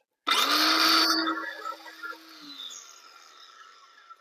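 Cordless circular saw starting and cutting a decking board in a loud burst lasting about a second. Its motor then winds down, the whine falling in pitch as it fades.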